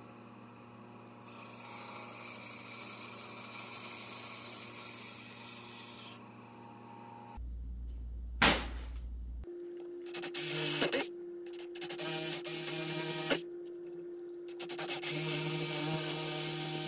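A bandsaw cuts through wood for about five seconds. After a sharp knock, a drill starts and runs with a steady hum, and a bit bores into wood in several short stretches of cutting noise.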